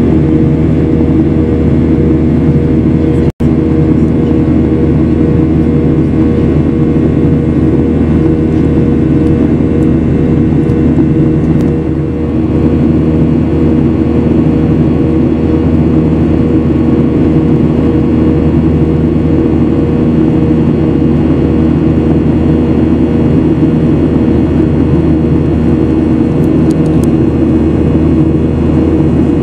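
Steady jet cabin noise of a Boeing 737 in flight: the drone of its turbofan engines and rushing air heard from inside the cabin, with a steady low hum. The sound cuts out for an instant about three seconds in.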